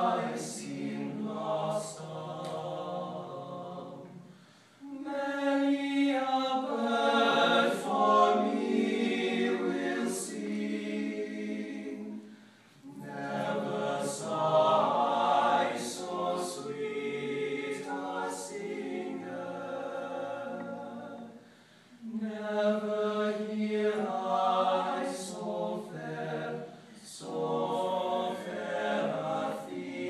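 Men's a cappella group singing in close harmony, several voices together with no instruments, in phrases broken by short pauses.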